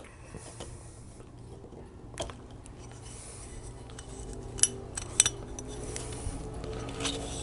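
Steel piston ring being spread by hand and worked into its groove on an aluminium Harley-Davidson Evolution piston: a few light metallic clicks and clinks, several seconds apart.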